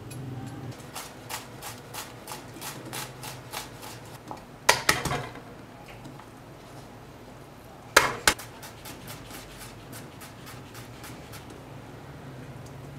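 Chef's knife chopping vegetables on a plastic cutting board, with even strikes at about three a second. A louder clatter comes near five seconds and two sharp knocks about eight seconds in, followed by quicker, lighter chopping as onion and garlic are minced.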